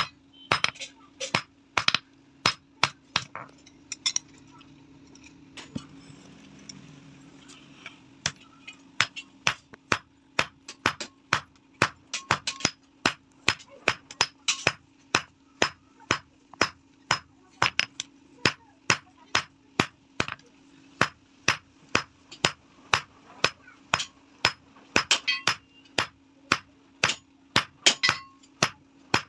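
Hand hammer forging a red-hot flat steel bar on an anvil: a steady run of sharp, ringing blows about two a second, with a pause of a few seconds near the start. A faint steady low hum runs underneath.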